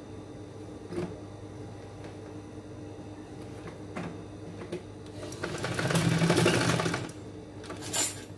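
Industrial sewing machine stitching through the layers of a fabric bag in one short burst of about a second and a half, about five seconds in, over a steady hum. A few clicks come as the work is positioned under the presser foot, and a sharp clack near the end.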